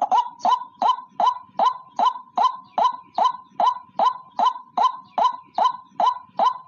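A single white-breasted waterhen (ruak-ruak) calling, repeating one short, sharp note about two and a half times a second in an even rhythm, as in a bird-trapping lure call.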